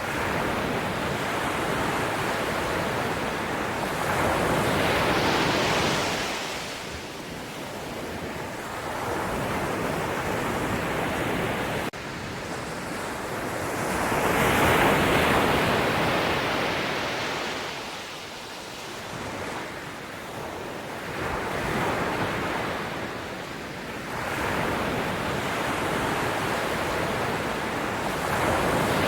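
Sea waves washing onto a shore, the surf swelling and fading in slow surges about every seven to nine seconds, four surges in all.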